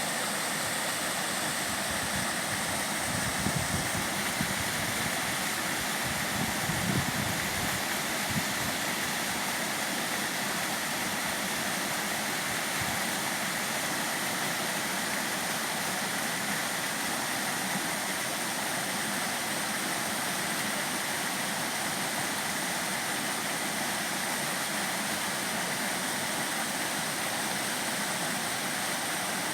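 Mountain stream water rushing steadily over rocks, an even hiss with a few brief low rumbles in the first several seconds.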